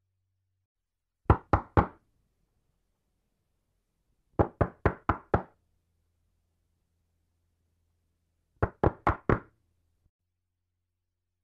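Knocking on a door in three separate rounds: three quick knocks, then five, then four, with silent pauses between the rounds.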